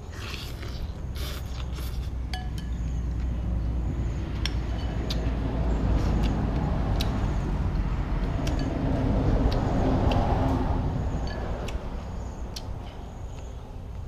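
A motor vehicle driving past: its engine rumble swells to a peak about ten seconds in and then fades. Over it come light clinks of a metal spoon and chopsticks against a ceramic noodle bowl, and chewing near the start.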